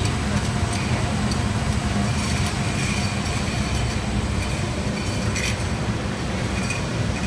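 Conveyor-belt parts washer (model 580) running: a steady low machine hum, with a few light clicks scattered through it.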